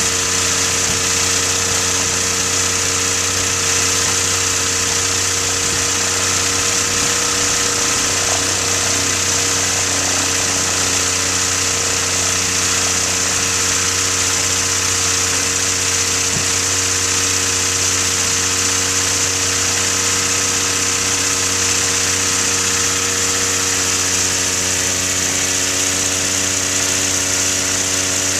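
X-Air microlight's overhead engine running steadily with its propeller turning, at taxiing power. Its note shifts slightly near the end.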